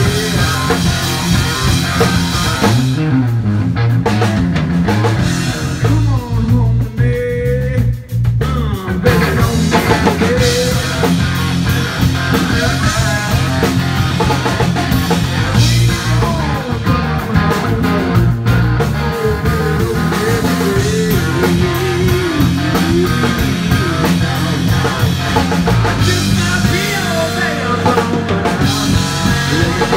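Live blues-rock band playing: electric guitars over a driving drum kit.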